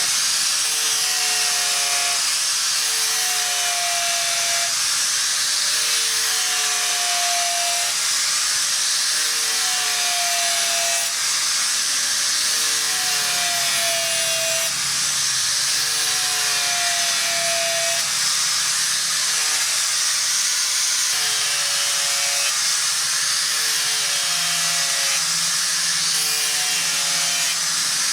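Rhythmic rubbing or scraping strokes of an abrasive worked by hand, about one every two seconds, each with a short squeal that dips slightly in pitch, over a steady hiss.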